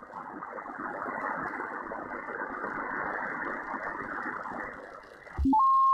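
Shortwave receiver hiss from the Malachite DSP SDR tuned to the 14 MHz band, a steady band noise limited by the narrow sideband filter. Near the end the hiss gives way to a loud whistle tone that jumps up in pitch, typical of tuning across a carrier.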